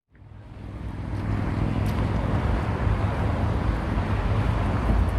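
Steady low vehicle rumble with road hiss, fading in over about the first second.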